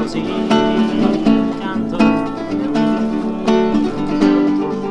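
Acoustic guitar strumming chords in a steady rhythm.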